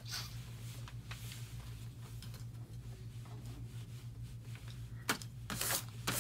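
Faint rustles and light clicks over a steady low hum; about five seconds in, a few quick swishes as a ruler brushes across sheets of paper.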